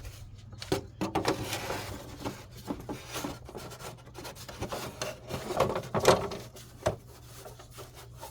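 Plastic engine cover being handled, set back on the engine and pressed into place: a run of rubbing, scraping and clicks, loudest about six seconds in, with a single sharp knock just before seven seconds.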